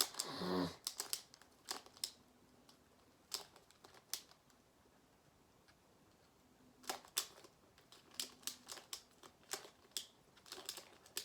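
Plastic Skewb puzzle being turned by hand: scattered light clicks and short runs of clicks as its layers snap round, with a quieter stretch in the middle.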